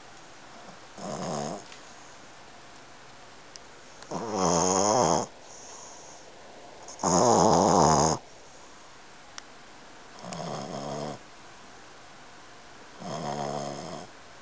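Boston terrier puppy snoring in its sleep: five rasping snores roughly every three seconds, each wavering in pitch, the second and third much louder than the rest.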